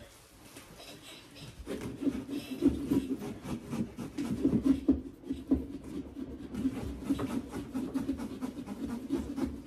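Small pumpkin-carving tool sawing and scraping through a pumpkin's shell: quick, irregular rasping strokes that start about two seconds in and keep going.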